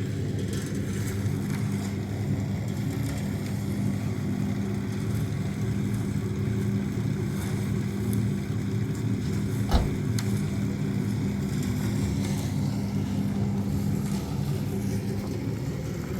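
An engine running steadily, with a single sharp knock about ten seconds in.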